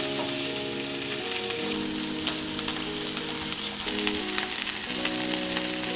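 Steaks searing in a frying pan: a steady hiss of sizzling fat with many small crackles. Soft background music with held chords plays underneath.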